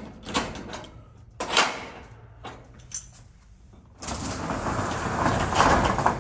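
Padlock and sliding latch on a storage unit door clicking and clacking as they are undone. About four seconds in, the corrugated metal roll-up door starts rattling loudly as it is pushed up.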